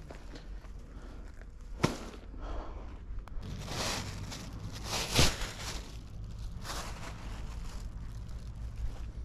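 Plastic bag rustling and crinkling as it is handled, in a few short bursts, with a sharp click about two seconds in.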